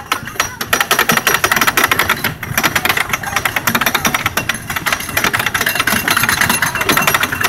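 Wooden roller coaster train climbing the chain lift hill, its anti-rollback dogs clacking rapidly and evenly over the ratchet strip, with the rattle of the lift chain underneath.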